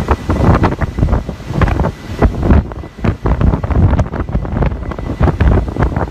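Hurricane-force wind hitting the microphone in loud, uneven gusts, with the rush of storm-whipped water underneath.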